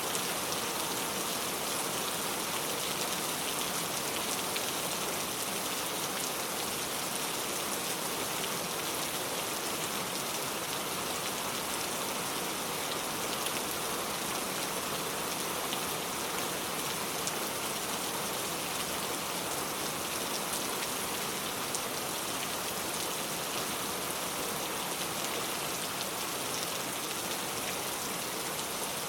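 Steady rain falling, a dense even patter of drops on surfaces with fine, crisp drop ticks.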